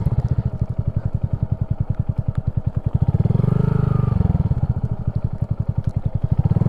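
A Honda Grom's single-cylinder 125cc four-stroke engine running at low revs with an even, rapid beat. It picks up a little about three seconds in.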